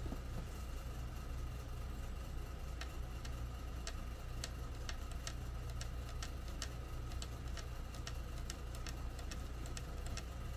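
Light, sharp clicks starting about three seconds in and coming irregularly, two or three a second, over a steady low electrical hum.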